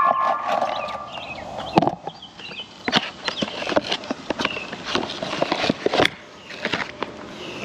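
A string of irregular sharp knocks and clicks, some louder than others, like parts and tools being handled and set down.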